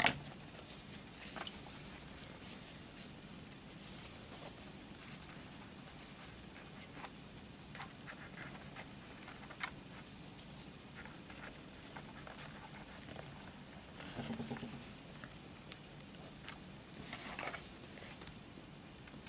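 Faint rustling of paper towel strips being handled and pressed into place by hand, with scattered small clicks and taps.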